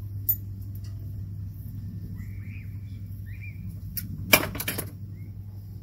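Sharp clicks and rustling of stiff electrical wires being handled at an inverter's wiring compartment, with one click near the start and a loud cluster of clicks a little past the middle. A steady low hum runs underneath.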